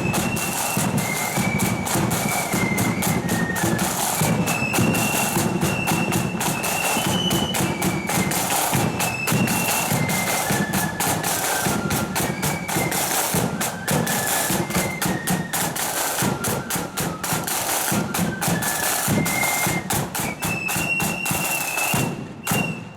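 Marching flute band playing a tune: a shrill flute melody over rapid snare drumming and a booming bass drum. The music stops abruptly near the end.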